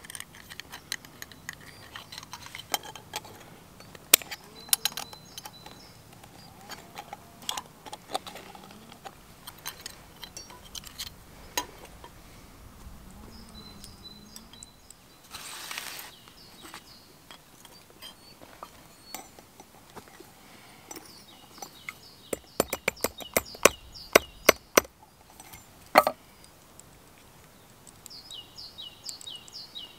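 Copper wire being worked with hand tools: sparse light metallic clicks and taps, a quick run of taps about two-thirds of the way in, then one louder knock. A bird gives a series of short chirps near the end.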